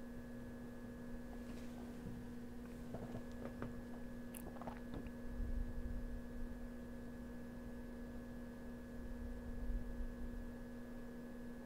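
Steady electrical hum, with a few faint clicks and small rustles about two to five seconds in.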